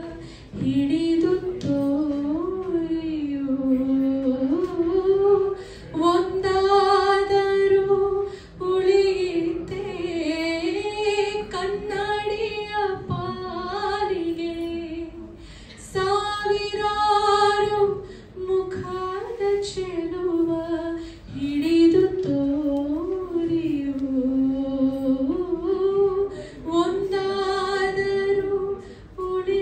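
A woman singing solo into a microphone with no instrumental accompaniment, a slow melodic song with long held notes and ornamented turns between them, and short pauses for breath.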